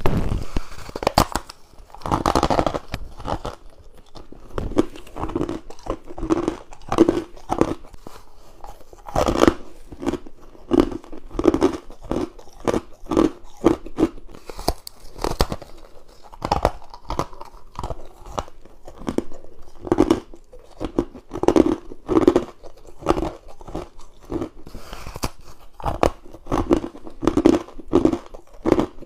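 Close-up bites into frozen humidifier frost and ice cubes: a run of crisp crunches, one or two a second at an uneven pace.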